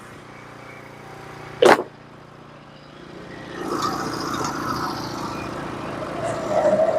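A portable bandsaw mill's engine running steadily, then growing louder from about three and a half seconds in, with more noise as the mill works. A short, sharp, loud sound cuts in once, about a second and a half in.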